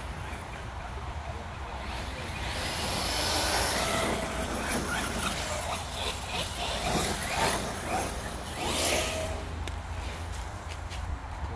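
TLR Typhon 1/8-scale buggy running on 3S, its electric motor whine and tyre noise swelling and fading as it drives about and passes. There are a few sharp clicks in the second half.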